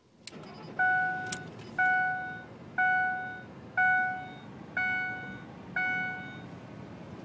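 Ford pickup's dashboard warning chime: six bell-like dings about a second apart, each fading out, then stopping. A steady low rumble from the running truck lies underneath.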